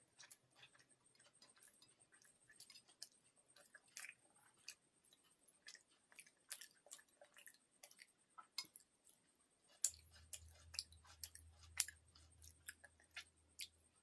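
A person eating close to the microphone: chewing with many irregular small clicks and smacks. A low steady hum comes in about ten seconds in.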